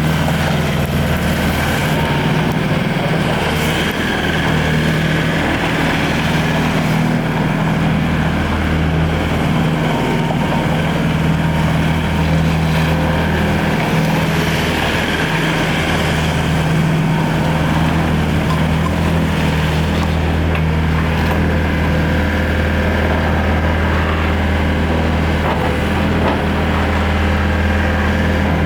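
Bobcat T770 skid steer's diesel engine running steadily.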